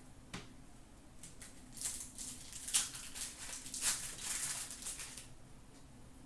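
Hands handling 2007-08 Upper Deck hockey trading cards: a light click, then a few seconds of dry rustling and sliding as the cards are shuffled through.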